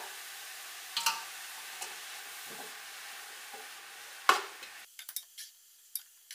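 Minced chicken with shredded cabbage and carrot sizzling in a metal pot as a metal spatula stirs it, with knocks of the spatula against the pot, the loudest about four seconds in. The sizzle cuts off suddenly about five seconds in, leaving a few light clicks and scrapes of stirring.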